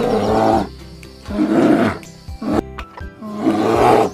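Three loud rough roars from a large animal, each under a second long, over steady background music.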